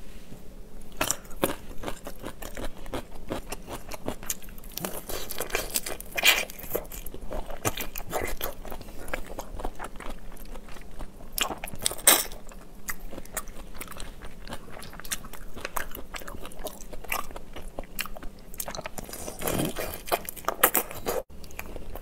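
Close-miked biting and chewing of whole marinated shrimp eaten shell-on: a dense run of crunching and crackling shell clicks, with the loudest single bite about twelve seconds in.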